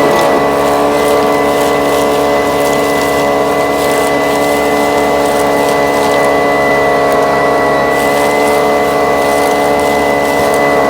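Small engine-driven vacuum running steadily at constant speed, with a thin, high whine over the motor.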